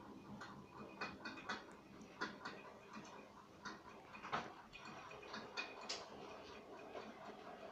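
Miniature model train running on its track: faint, irregular clicking of the wheels and rolling stock, several clicks a second.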